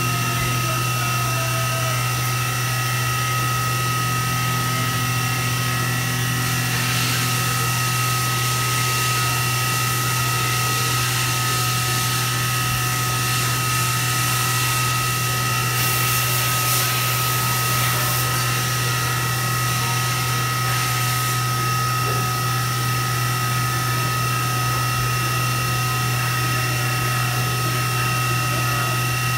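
2003 Fadal 4020HT CNC vertical mill running: a steady low hum with a constant high whine, while its table traverses under the spindle. A brief hiss rises over it about halfway through.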